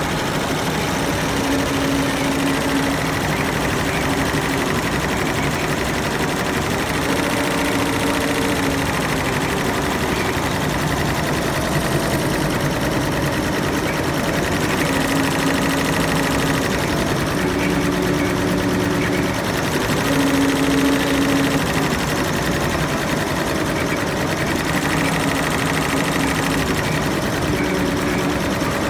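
Wonyo two-head computerized embroidery machine running, its needle bars stitching in a fast, even rhythm. Short low hums come and go every few seconds over the steady clatter.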